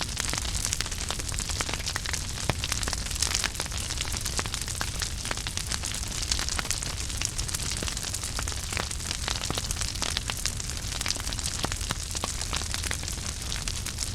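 Wood fire burning in a fireplace, crackling with frequent sharp pops and snaps over a steady low rumble.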